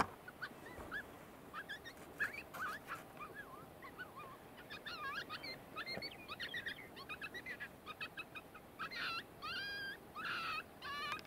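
Coyote yips and short wavering howls: quick rising-and-falling calls that come faster and climb higher about halfway through, several overlapping toward the end.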